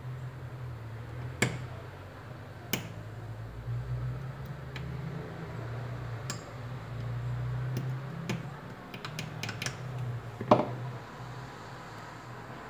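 Scattered light clicks and taps as a thin metal pick works at a phone's small power-button flex, with a cluster of quick clicks late on and the loudest tap about ten and a half seconds in, over a steady low hum.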